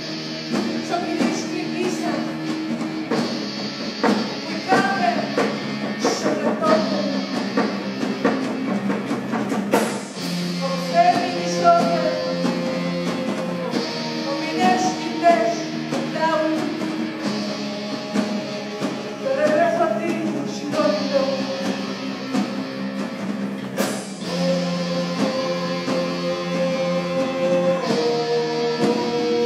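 Live Nahua folk-rock band playing a song: a voice singing a melody over electric guitar, bass and drums.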